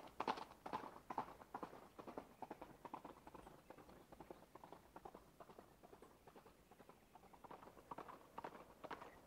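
Faint horse hoofbeats in a quick, even clip-clop rhythm, fading through the middle and growing stronger again near the end.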